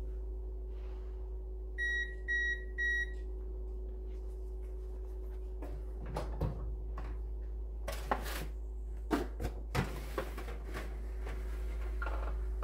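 Whirlpool range's control panel beeping three times, about two seconds in, as the oven is set to broil. Then knocks, clatter and foil rustle as a foil roasting pan is handled and slid onto the oven rack through the open oven door, over a faint steady hum.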